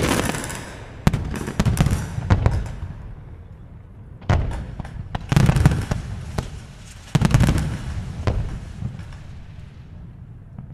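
Aerial firework shells bursting in quick clusters of sharp bangs every second or two, some groups in rapid runs like crackling, each bang trailing off in a brief low rumble.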